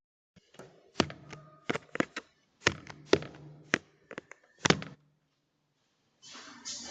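A kitchen knife stabbing repeatedly into a Ring doorbell camera, picked up by the camera's own microphone: about nine sharp knocks over four seconds, unevenly spaced.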